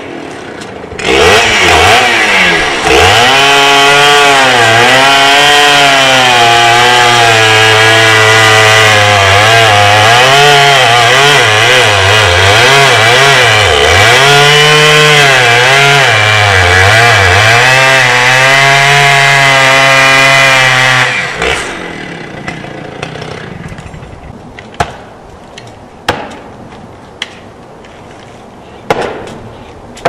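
Gas chainsaw cutting into a large conifer trunk at full throttle, its pitch dipping and recovering as the chain bogs in the cut. It stops about two-thirds of the way through, and four or five sharp knocks follow, a second or so apart, as an axe is struck at the cut.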